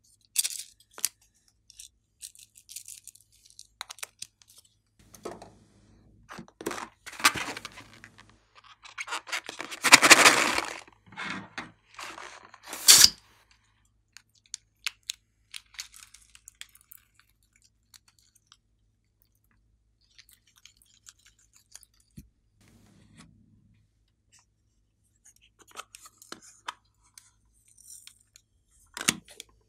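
Hands handling small plastic toys and containers: crinkling, tearing and clicking. A louder crackle lasts about a second around a third of the way in, followed by a sharp snap; after that come only faint ticks and a click near the end.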